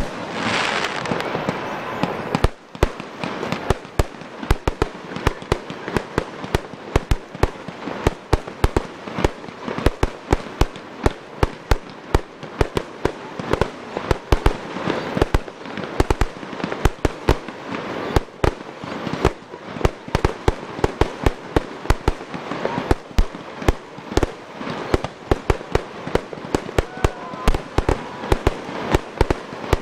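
Fireworks display: a rapid, continuous string of sharp bangs from aerial shells bursting, several a second, over a steady hiss.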